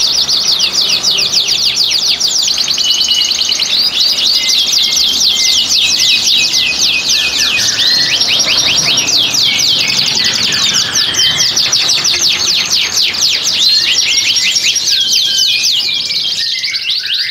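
Domestic canaries singing a fast, continuous rolling trill of rapid down-sweeping high notes, several strains overlapping. This is the 'ngerek' song of canaries in breeding condition.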